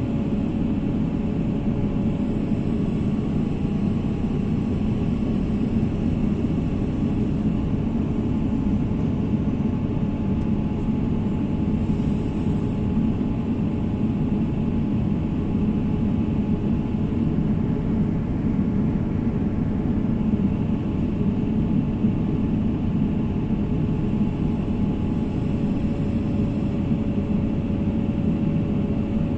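Excavator diesel engine running steadily at a constant speed, with a faint steady whine over the low engine noise.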